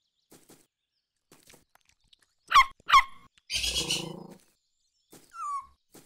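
Cartoon puppy's two short, sharp yapping barks, followed by a raspy hissing growl of nearly a second and then a brief falling whimper near the end.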